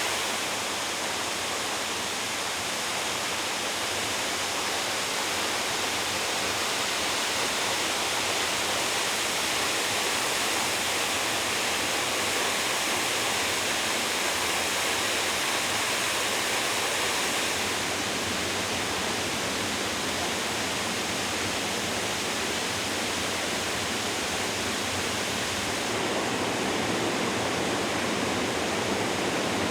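Onogawa Fudo Falls, a plunge waterfall dropping over 20 m, sending down a steady, loud rush of falling water. The sound shifts slightly about two-thirds of the way through and again near the end.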